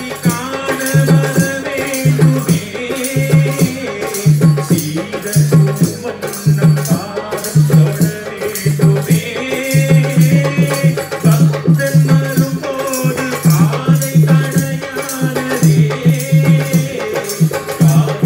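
Male voices singing a Tamil devotional song live through microphones, with percussion keeping a steady, repeating beat.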